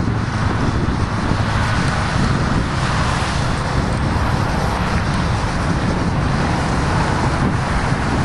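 Steady mix of highway traffic passing close by and wind buffeting the microphone, over the rumble of a long freight train rolling past.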